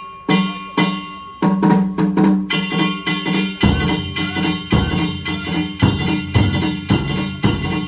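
Danjiri narimono: hand-held kane gongs struck in a steady rhythm, each strike ringing on, joined about three and a half seconds in by deep beats of the taiko drum.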